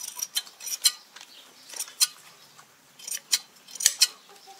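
Hand shears snipping through a sheep's wool, a string of sharp metallic clicks coming in irregular clusters.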